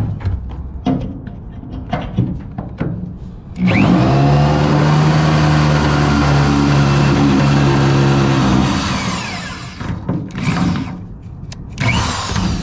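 Electric drill running steadily for about five seconds, boring a hole through the truck bed's metal frame, then winding down. Knocks come before it, and shorter bursts of the drill follow near the end.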